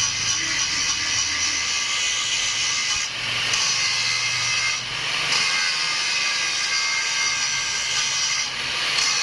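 Angle grinder grinding the steel piston of a broken hydraulic floor jack, a steady loud hiss that eases briefly about three and five seconds in and again near the end.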